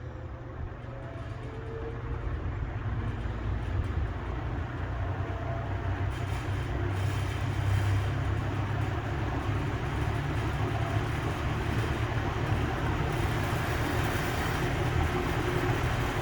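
Old Westinghouse metal box fan started on low, its blades winding up: a whirring rush of air with a low hum that grows steadily louder as the motor comes up to speed.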